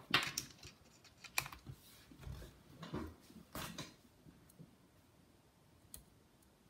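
Scattered clicks and light taps of a laptop being handled, bunched in the first four seconds with a single faint click near the end.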